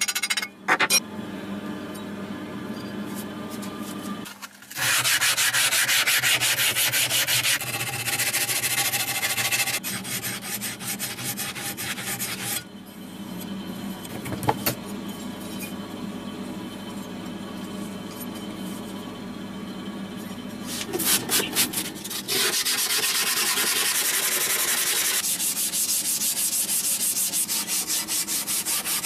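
Abrasive sanding on an old, rusty and pitted steel cleaver, in loud stretches of rasping from about five seconds in and again through the last third, with quieter rubbing between and a few knocks.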